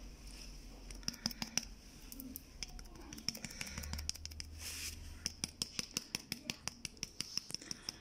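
Light, quick tapping and scratching on a small painting card as paint is dabbed onto it: a few scattered taps, then a fast even run of about six taps a second in the second half.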